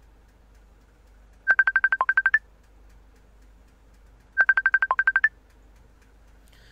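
Electronic phone ringtone: a quick run of about eleven beeps on one pitch, with one lower note and a higher last note, played twice about three seconds apart.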